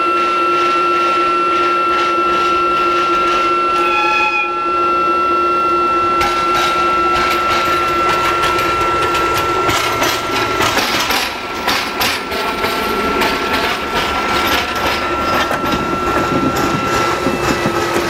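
ZSSK class 381 (Siemens Taurus) electric locomotive rolling slowly toward and past, with a steady high electrical whine and a lower hum. From about six seconds in, wheel clicks over rail joints and points come faster and louder as it draws alongside. A short horn-like tone sounds about four seconds in.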